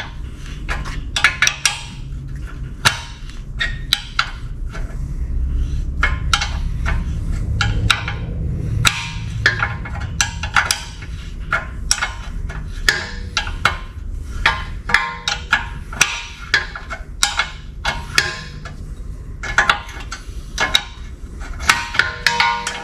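Hand tools clinking and tapping on a 2013 Kia Soul's outer tie rod end and castle nut: irregular sharp metallic clicks and knocks, at times several a second, over a low steady hum.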